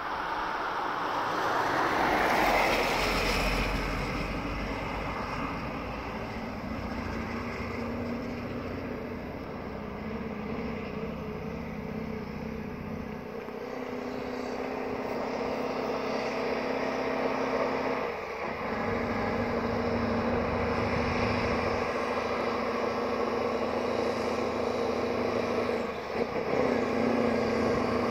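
Scania 143's V8 diesel engine labouring uphill under an 82-tonne load, drawing closer and growing louder, with two brief drops and changes in its note in the second half as it shifts gear. A rising whoosh comes near the start.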